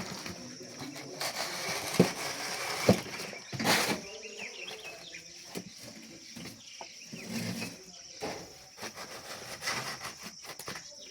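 A few sharp knocks and scattered scraping and clicking, over a steady high-pitched hum.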